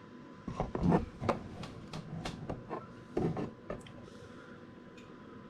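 Handling noise from a plastic oil bottle and a threaded funnel while oil is poured into a portable generator: a string of light clicks and knocks over the first few seconds, then quiet.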